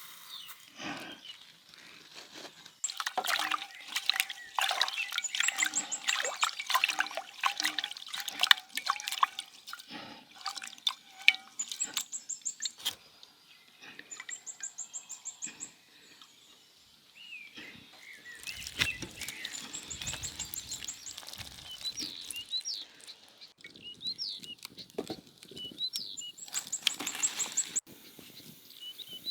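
Birds calling: a short high trill repeated every few seconds, with quick chirps in the second half. From about three to thirteen seconds in, a dense run of splashing, clicking knocks.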